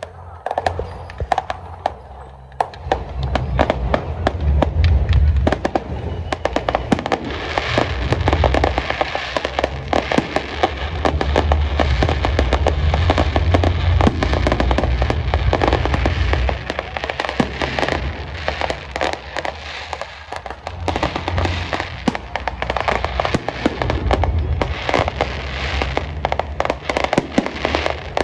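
Fireworks display: a dense, continuous run of sharp bangs and crackles over deep booming explosions. It builds up over the first few seconds and thins briefly about twenty seconds in.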